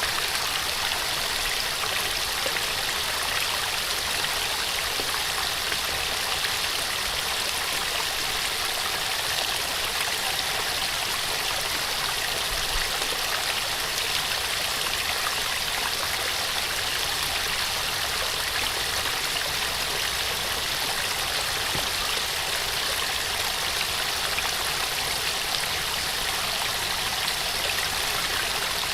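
Small waterfall: water pouring and splashing in a steady, even rush.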